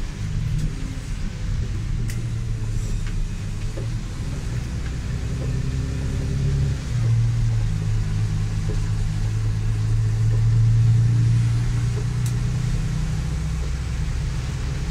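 A vehicle's engine running, heard from inside the cab as a steady low drone. About seven seconds in, its pitch shifts and it grows louder, peaking around ten to eleven seconds.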